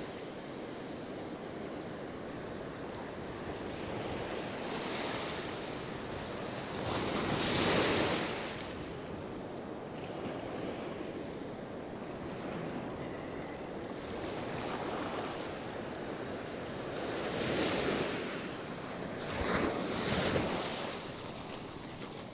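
Ocean surf breaking and washing up a sandy beach: a steady rush of foam and water, with louder surges as waves break about seven seconds in and twice more near the end.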